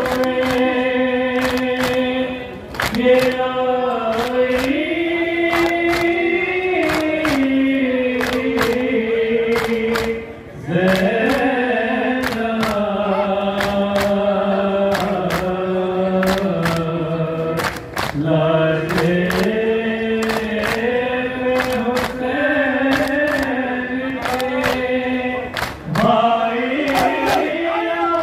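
A group of mourners chanting a nauha lament in unison, in long held phrases with short breaks between them, over steady rhythmic sharp slaps of matam, hands beating on chests in time with the chant.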